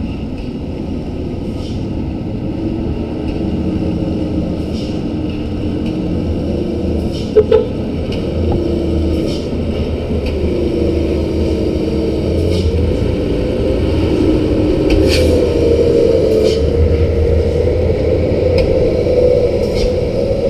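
Diesel engines of Hino dump trucks running as a convoy comes up the muddy haul road, the engine note slowly rising and growing louder as they approach. Two brief loud sounds stand out about seven seconds in.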